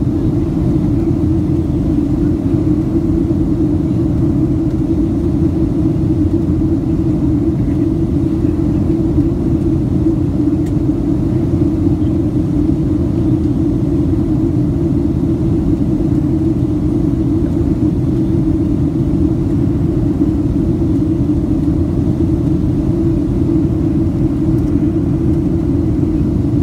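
Steady cabin noise inside a Boeing 737 in flight: the rumble of engines and airflow heard through the cabin, heaviest in the low range with a strong band just under 400 Hz, unchanging.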